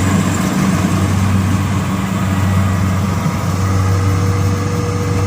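Engine of a Yanmar combine harvester running steadily, a loud, even low hum.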